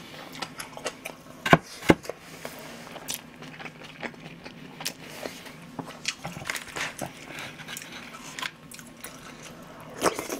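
Close-miked eating sounds: a person chewing and biting food, with many small wet clicks and crackles from the mouth and spoon. Two sharp, louder clicks come about one and a half to two seconds in.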